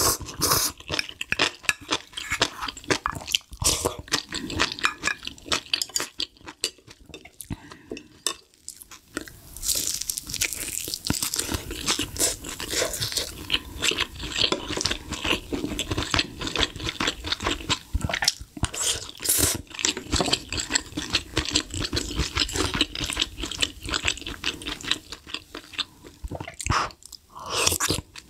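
Close-miked eating sounds: chewing and slurping spicy beef short-rib soup off a spoon and from a small steel bowl, with a dense run of small wet clicks.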